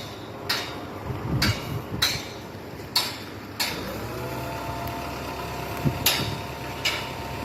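Sharp knocks and clatters at irregular intervals, roughly one a second, over a steady mechanical hum that sets in with a short rising glide about four seconds in.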